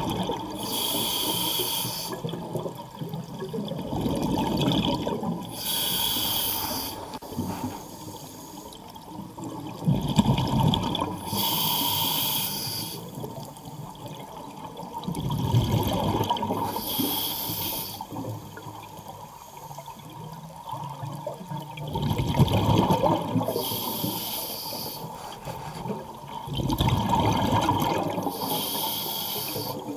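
A scuba diver breathing through a regulator underwater. About six breaths come every five seconds or so, each one a rush of bubbles rumbling out with the exhalation and a hiss as air is drawn from the regulator.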